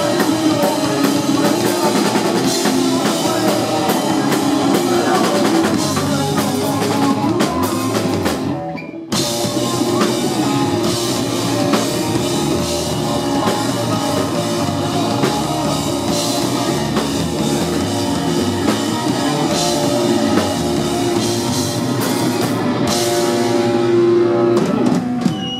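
Live rock band playing loud: drum kit, electric guitar and bass guitar. The band stops for a split second about nine seconds in, then comes straight back in.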